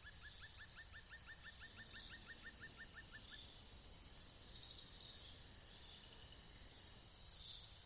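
Faint forest ambience: a bird gives a fast run of short rising whistled notes, about six a second, that stops about three and a half seconds in. Insects chirp in high pulses, a few a second, from about a second and a half in until near the end.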